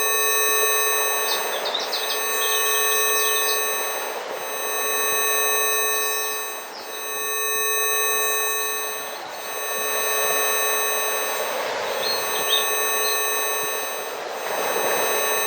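Several steady electronic tones at different pitches, the video's 'Rife' healing frequencies, held over a rushing nature-sound background that swells and fades every two or three seconds. Birds chirp a few times: soon after the start, about twelve seconds in, and near the end.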